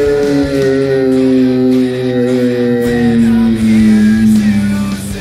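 Background music, with one long note that slides slowly down in pitch and grows quieter near the end.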